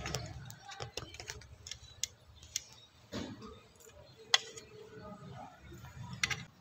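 Scattered small plastic clicks and taps from a hand handling a white plastic fiber modem while fitting a connector into its back, the sharpest click about four seconds in.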